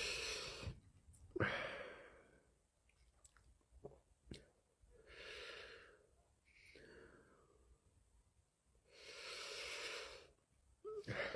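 A man breathing heavily after eating a large number of Carolina Reaper chillies: slow, long breaths in and out every second or two, to ride out the burn. A few faint clicks come in a lull about midway.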